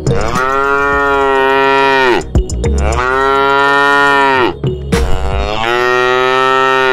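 Cow mooing: three long moos of about two seconds each, each one holding its pitch and then dropping off at the end.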